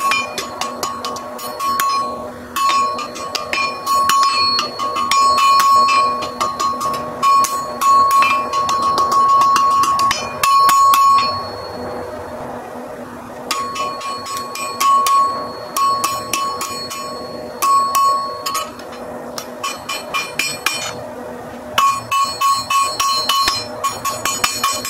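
A hand hammer strikes hot iron on a steel anvil in rapid runs of blows, each one leaving the anvil ringing. The blows are sped up to double speed. They stop twice for a couple of seconds, about twelve seconds in and again around twenty seconds, while the iron is reheated.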